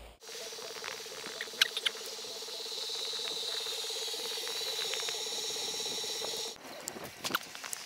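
Skis sliding fast over snow, a steady scraping hiss with a pulsing hum and a few sharp knocks about one and a half to two seconds in, heard through an action camera's case; it cuts off abruptly near the end.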